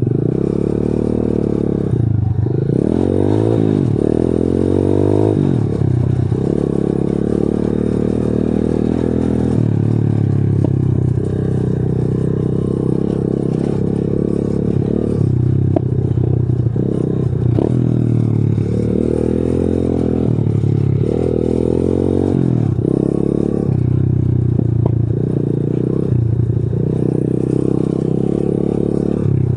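125 cc pitbike's single-cylinder four-stroke engine under way, revving up and falling back again and again as the throttle is worked, with rattling and scraping from the bike over a rough dirt path.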